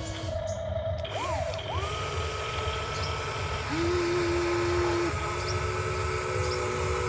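Small electric motors of an RC excavator whining as they run, speeding up and slowing down. One rises and falls about a second in, then settles into a steady high whine. A lower-pitched motor joins it for a second or so near the middle.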